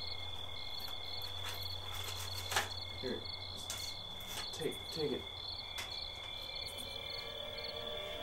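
Crickets chirping steadily in a regular rhythm, with a sharp click about two and a half seconds in and a few brief low sounds.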